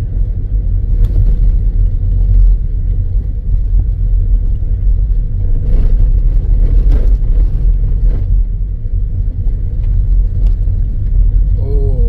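Steady low rumble of a car driving on a dirt road, engine and tyre noise together, with a few short knocks and rattles from bumps in the road.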